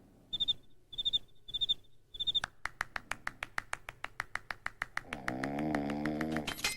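Cartoon sound effects: four short, high electronic chirps about half a second apart, then a quick, even run of clicks at about six a second, joined near the end by a low buzz.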